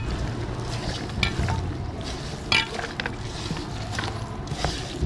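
A hand mixing raw chicken pieces with fried onions, herbs and spices in an aluminium pot: wet squelching and rustling of the marinade, with a few short sharp clicks. A steady low rumble of background noise runs underneath.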